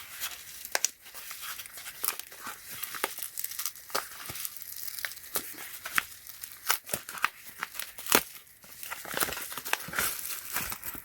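Packaging crinkling and being torn open by hand in a rapid run of sharp crackles and snaps.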